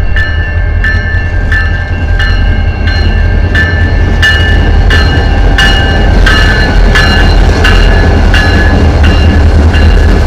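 Two EMD SD40-2 diesel locomotives passing slowly, their 16-cylinder engines making a steady low rumble. Over it a bell rings about three times every two seconds, loudest in the middle as the lead unit goes by.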